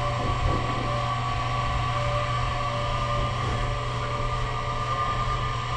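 Steady mechanical hum of a running motor, with a constant low drone and a higher held whine.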